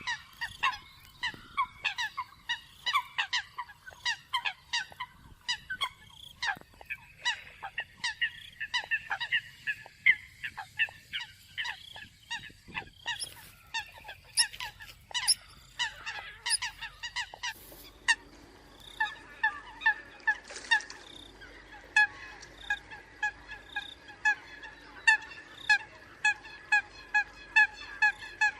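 Eurasian coots calling: a busy series of short, sharp honking notes, with many calls overlapping. From about two-thirds of the way through, the calls settle into an evenly spaced, repeated run.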